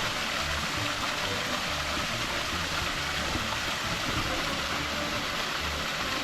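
Small creek waterfall: water running and splashing in a steady, even rush.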